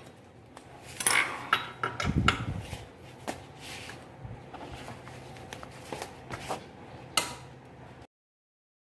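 Metal hand wrench clinking and scraping on the 12 mm bolts of a scooter's underbody cover as they are worked loose. There are scattered sharp clicks, a duller knock about two seconds in and a sharp click near seven seconds, then the sound cuts out abruptly.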